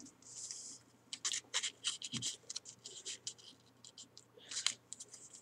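A square sheet of origami paper being folded and creased by hand: irregular crinkles, rustles and short scrapes of paper, with a couple of longer rubs about half a second in and near the end.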